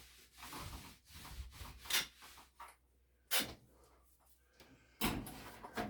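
Paint roller rolling primer onto drywall, a few short rubbing strokes about a second apart and a longer one near the end.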